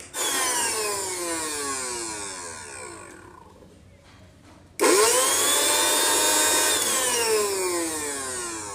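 Pigeon mixer grinder motor, running unloaded with no jar fitted, switched on twice. The first time it is a quick pulse that winds down over about three seconds. About five seconds in it spins up with a rising whine, runs steadily for about two seconds, then is switched off and coasts down in a falling whine.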